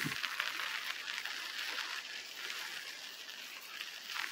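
Strong wind on the microphone: a steady hiss with fine crackling.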